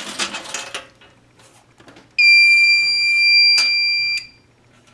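Fire alarm control panel's built-in buzzer sounding one steady, high-pitched tone for about two seconds during a system reset, with a click partway through, then cutting off.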